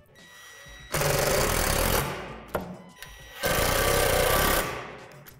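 Cordless drill-driver running twice, about a second each time, driving in the bolts that fasten a rim cover plate to a basketball rim.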